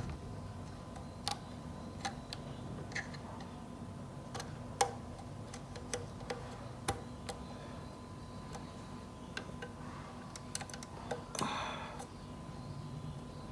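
Scattered small clicks and taps from hands handling the opened Roland SPD-SX's internal parts and SD memory card during the card swap, with a brief scrape about eleven and a half seconds in. A faint steady hum runs underneath.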